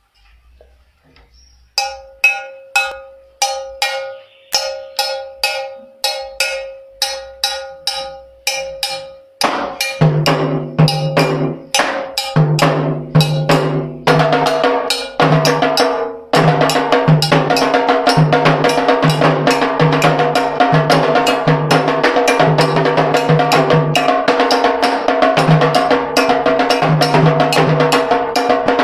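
Candomblé percussion: a struck metal agogô bell starts alone at about two strikes a second, then atabaque hand drums come in about ten seconds in, and the full drum-and-bell rhythm runs on densely from about sixteen seconds.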